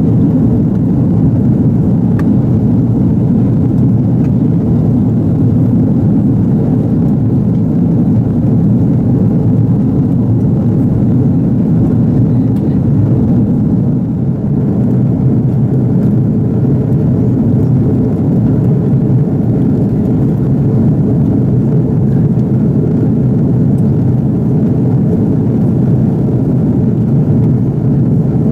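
Steady rumble of an Airbus A330-300's engines and rushing air heard inside the passenger cabin at a window seat as the airliner climbs out through the clouds. The sound is constant and deep, dipping briefly about halfway through.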